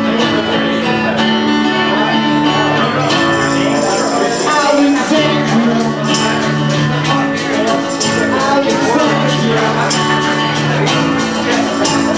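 Acoustic rock band playing live, unplugged: ringing acoustic guitar chords, with a steady beat of percussion hits coming in about three seconds in.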